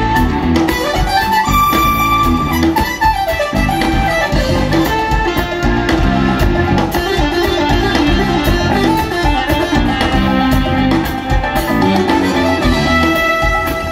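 Live band music with a steady beat, a melodic lead line over the band.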